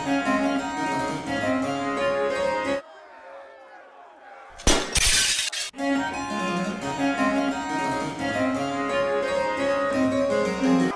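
Harpsichord music that breaks off about three seconds in. After a short lull comes a loud crash of noise lasting about a second, and then the harpsichord music starts again.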